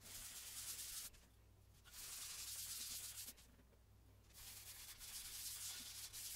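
Folded paper towel wiping oil into a wooden cutting board: three soft rubbing strokes with short pauses between.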